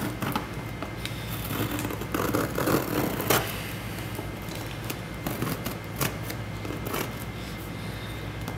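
Scissors scraping and snipping at the packing tape on a cardboard shipping box, with cardboard rustling. The busiest, loudest stretch comes about two to three and a half seconds in, ending in a sharp click, followed by scattered single clicks.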